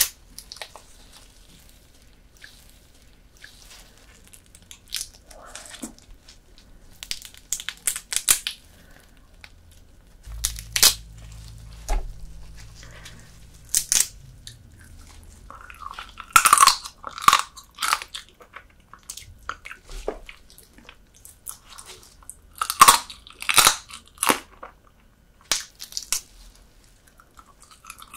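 Close-miked eating of soy-sauce marinated horsehair crab: bites, crunches and chewing, coming in scattered clusters with quiet gaps between.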